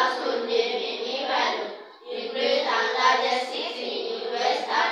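A class of children reading aloud together in unison, a chant-like chorus of young voices that breaks briefly about two seconds in.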